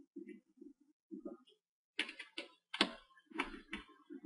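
Small screwdriver clicking and scraping on the screws of a laptop screen's metal mounting brackets as they are loosened. Short dull handling sounds come first, then about five sharp clicks from about two seconds in.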